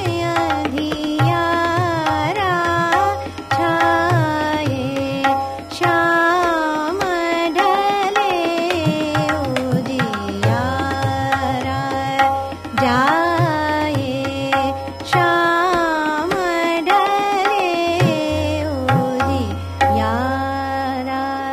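Hindustani classical music in Raag Hans Dhwani: a bandish with quick melodic runs gliding up and down over a steady tanpura drone. Tabla accompanies throughout, with deep bayan strokes heaviest near the end.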